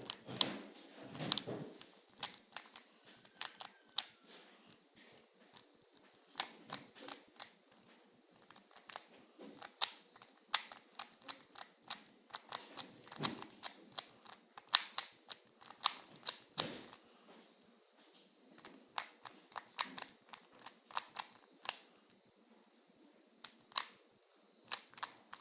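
Rubik's Cube layers being turned fast during a timed solve: irregular plastic clicks and clacks in quick flurries with short pauses.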